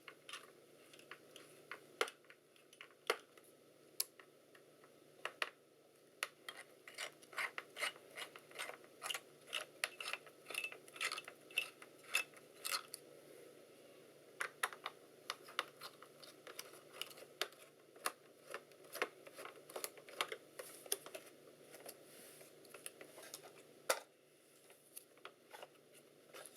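Small screwdriver working the screws of a laptop's processor heatsink: a long run of faint, irregular small clicks and scrapes of metal on metal, some in quick clusters.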